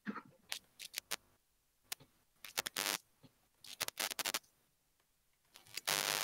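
Crackling, scratchy noise on a voice-chat microphone: sharp clicks and short bursts of static, the longest and loudest burst near the end. Listeners call it crackle (cızırtı) and take it for a phone's signal interfering with the line.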